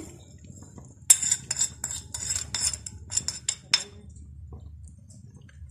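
A run of about a dozen light, quick clinks as a plate of seasoning is tapped against the rim of a metal cooking pot to knock the salt, pepper and sugar into the soup. The clinks start about a second in and stop after nearly three seconds.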